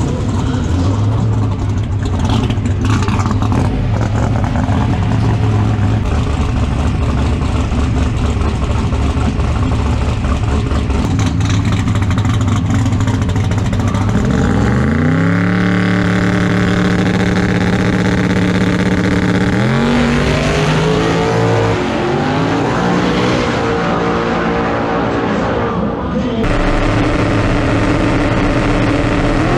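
Mustang drag car's race engine rumbling loudly after its burnout, then revved up about halfway through and held at a steady high rpm on the line, then rising in pitch again as it pulls hard.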